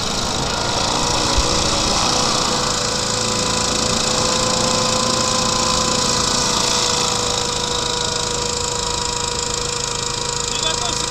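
Small hovercraft's engine and air propeller running steadily at low speed over snow, a dense machine noise with a steady whine through it.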